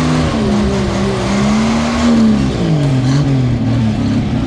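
Off-road 4x4's engine revving under load as it claws up a muddy bank, the revs wavering up and down. The revs hold high, drop a little past halfway, then pick up again near the end.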